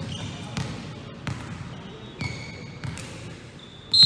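A volleyball bounced on a hard gym floor about five times at a slow, even pace as the server readies to serve. Near the end a loud referee's whistle blows, the signal to serve.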